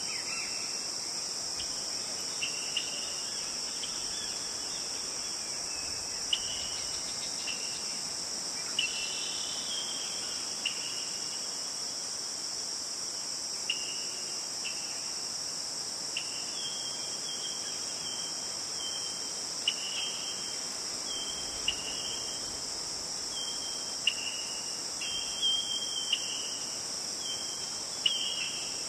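Steady high-pitched insect chorus, like crickets trilling, with short chirping notes coming in irregularly, more often in the second half.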